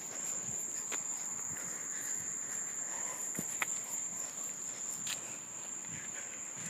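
Insects trilling in one steady, high-pitched, unbroken tone, with a few faint clicks and scuffs, as of handling or footsteps.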